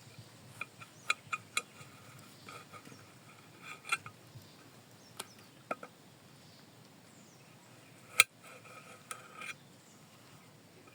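Metal utensil clinking against a metal cooking pot: irregular sharp clinks, each ringing briefly, the loudest about eight seconds in.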